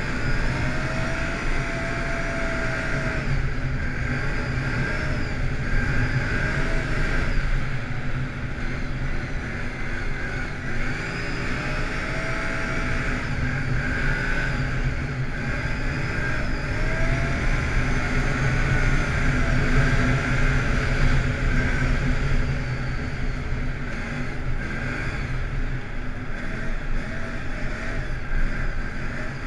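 ATV engine running steadily as the quad drives at speed over a snowy trail, its pitch rising and falling a little with the throttle.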